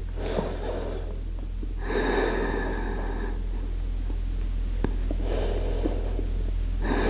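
A person breathing slowly and deeply, long inhales and exhales close to the microphone, about two full breaths, over a low steady hum.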